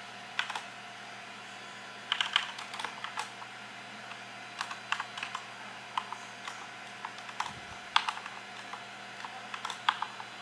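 Typing on a computer keyboard: irregular bursts of keystrokes with short pauses between them, over a steady background hum.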